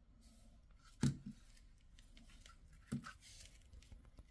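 Two sharp hard-plastic knocks about two seconds apart, with a few small clicks between, as a Parkside 8Ah battery pack and its charger are handled on a tile floor.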